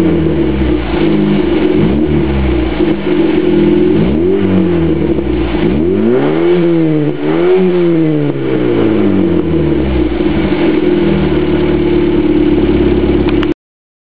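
Škoda Favorit's four-cylinder petrol engine breathing through an Ulter Sport Duplex aftermarket exhaust, revved in short blips from idle. Three quick blips come first, then two bigger revs near the middle, and it settles to a steady idle before the sound cuts off abruptly near the end.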